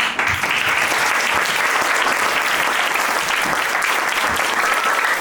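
An audience clapping steadily, a dense applause of many hands that starts abruptly at the close of a play.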